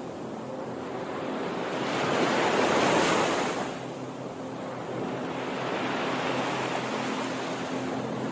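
Sea waves breaking on a shore: one wave swells and breaks about two to three seconds in, then eases into a softer, steady wash.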